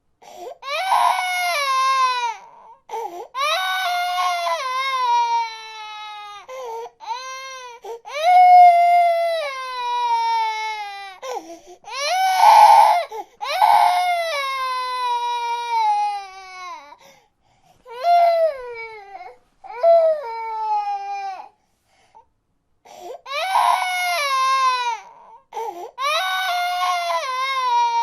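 Baby crying in repeated high-pitched wails, each lasting a second or two and falling in pitch at the end, with short gasps for breath between them and a longer pause about three quarters of the way through.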